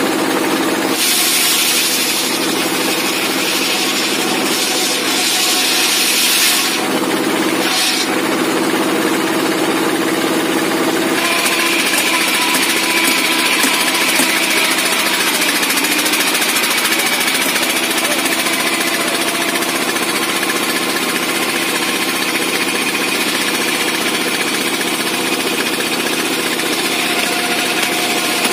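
Small single-cylinder dompeng diesel engine running steadily, driving a homemade table circular saw. In the first ten seconds a harsh hiss comes and goes three times as the blade cuts through wood. After that the blade spins free with a steady high whine over the engine.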